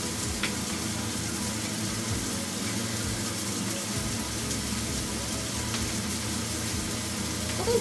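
Cubes of beef steak sizzling steadily in a frying pan as they are turned with chopsticks, with a hamburger steak frying in a second pan.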